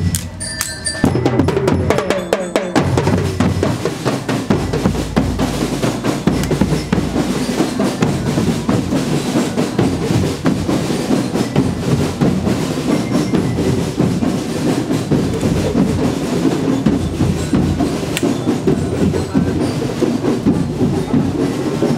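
Marching drum band of bass drums and snare drums playing a continuous drum rhythm.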